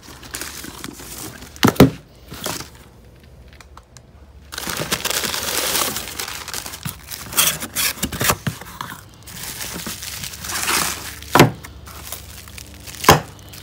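Plastic bubble mailer and plastic wrapping crinkling and tearing as a cardboard box is opened and unpacked, with a dense stretch of crinkling in the middle. A few sharp knocks and clicks come from the box and parts being handled.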